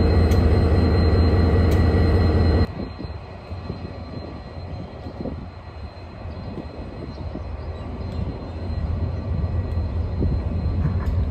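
KiwiRail DFB class diesel-electric locomotive idling up close, a loud steady low hum with a faint high whine. About two and a half seconds in, it drops abruptly to a quieter, more distant engine rumble that grows louder toward the end.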